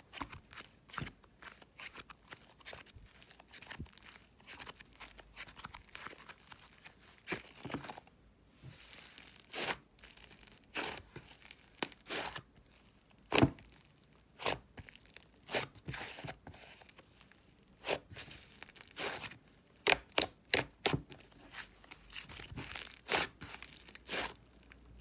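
Butter slime squished and kneaded between fingers: irregular sticky crackling with sharp pops, louder around the middle and again near the end.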